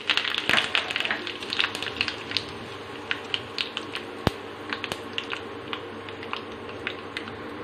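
Curry leaves frying in hot sesame oil in a small iron kadai with mustard seeds and urad dal: a steady sizzle with scattered crackles and pops, busier at first and thinning out, and one sharper pop about four seconds in.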